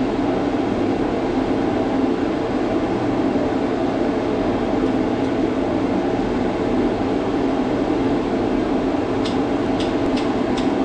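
A steady, loud, fan-like whooshing noise, with a few sharp clicks near the end.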